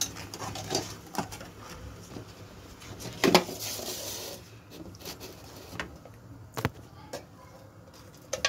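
Wooden spoon stirring tamarind chutney in a wok, with scattered knocks and scrapes against the pan. The loudest knock comes about three seconds in and another at about six and a half seconds.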